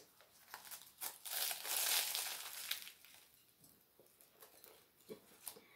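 Crisp, flaky puff pastry crust crackling and crunching as it is bitten into: a crackly burst lasting about two seconds, then a few fainter crunches as it is chewed.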